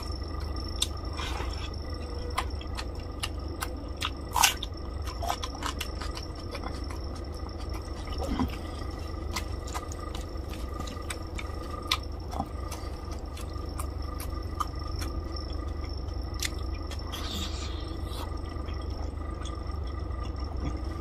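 Fingers squishing and mixing rice into fish curry gravy on a plate, with scattered wet, sticky clicks and mouth sounds of eating. A louder click comes about four and a half seconds in, over a steady low hum.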